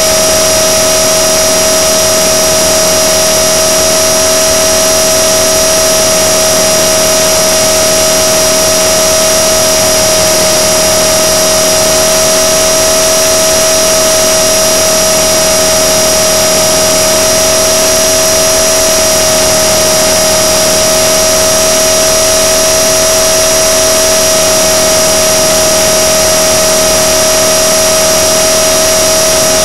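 Blade 300 X RC helicopter's electric motor and rotor whining at a steady pitch, heard loud and close from its onboard camera.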